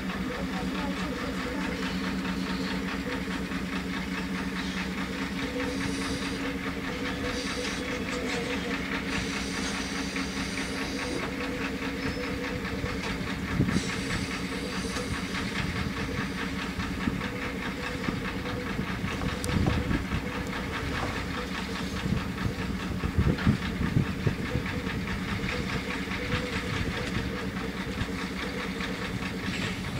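Narrow-gauge steam locomotive standing with a steady hiss of steam over a constant low hum. The hiss swells several times in the first half, and a few short metallic knocks come in the second half.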